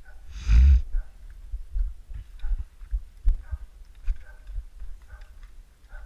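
Footsteps at a walking pace on hard, frozen farmyard ground, each a short low thump, with one loud rushing burst about half a second in.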